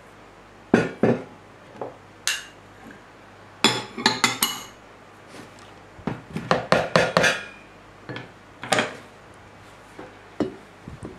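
Kitchen bowls and a stainless-steel pot being handled and set down on a worktop: a run of irregular clinks and knocks, some in quick clusters, one ringing briefly.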